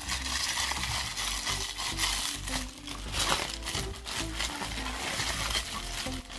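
Plastic bubble wrap crinkling and rustling as it is handled and pulled out of a cardboard box, with background music underneath.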